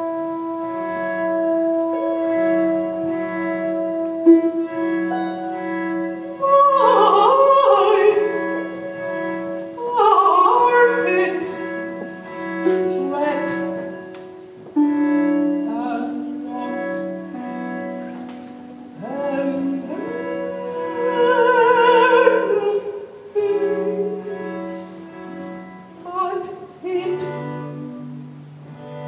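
A countertenor sings an operatic aria in several phrases with wide vibrato, over held chords from a small instrumental ensemble with bowed strings. Under it a low note repeats in short, even pulses.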